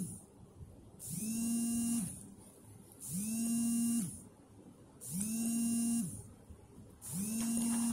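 A steady electric buzz that pulses on for about a second and off for about a second, in an even repeating rhythm.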